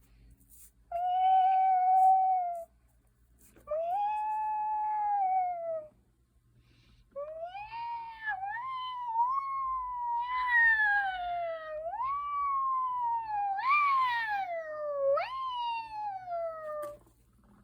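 An animal's long, high, wavering howl-like calls. First come two steady calls of about two seconds each. Then a long run of calls begins, each swooping up in pitch and sliding back down.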